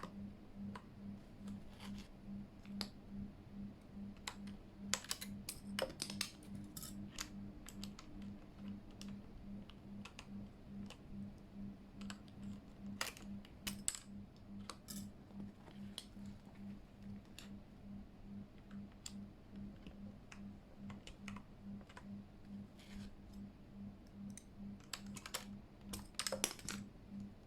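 Scattered, irregular clicks and clacks of a Keychron K8 mechanical keyboard's keys and keycaps, bunched in a few short flurries, over a faint low hum that pulses steadily a few times a second.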